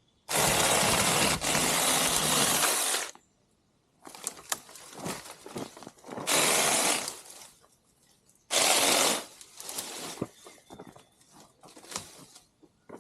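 Saker 6-inch battery-powered mini chainsaw running in three bursts, the first about three seconds long and two shorter ones later, its chain cutting through small branches. Twigs crackle and snap in between.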